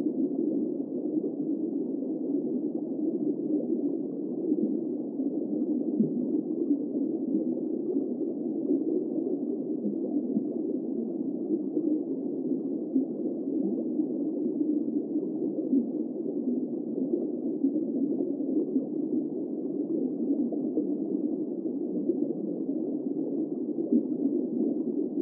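Steady, muffled rushing noise with no high tones, as picked up by an underwater fishing camera's recording under the ice. It starts and stops abruptly.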